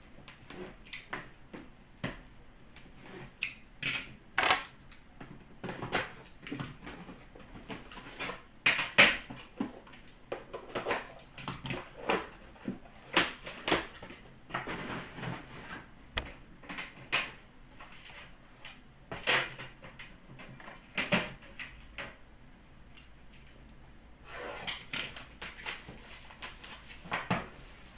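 A hockey-card box being unpacked by hand: a cardboard outer box and a metal tin clicking, knocking and scraping as they are opened and set down, with rustling of card packaging. There are longer stretches of rustling about halfway through and again near the end.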